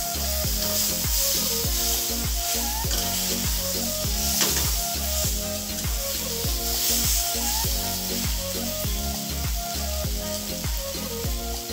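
Drumstick (moringa) pods sizzling as they fry with spices in a steel kadhai, a steady hiss, under background music with a repeating bass line.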